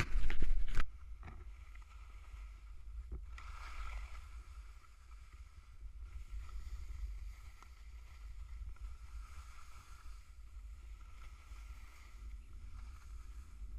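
Wind rumbling on an action camera's microphone while skis hiss and scrape over soft spring snow, the hiss swelling and fading with the turns. A loud rough burst with a few knocks comes in the first second.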